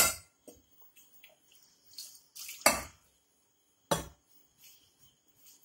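A little water added to an aluminium pressure cooker, with three sharp metal knocks of the pot and utensils.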